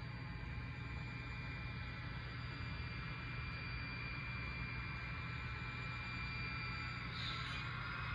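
Sound decoder of an HO scale model diesel locomotive playing a steady diesel engine sound through its small speaker. A hiss comes in near the end.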